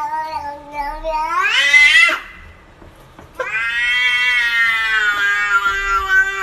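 A domestic cat making two long, drawn-out meows. The first lasts about two seconds and rises in pitch at its end. The second starts about halfway through, is longer and holds nearly steady, sliding slightly down.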